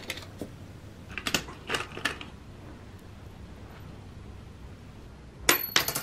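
Nails clinking and rattling in the small drawers of a parts cabinet as they are sorted through by hand, in scattered clicks about a second or two in. A sharper cluster of metallic clinks with a brief ring comes near the end.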